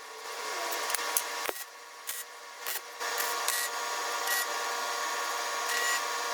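MIG welder arc crackling on steel sheet: short broken bursts and clicks, then a continuous steady crackle from about three seconds in as a longer bead is run.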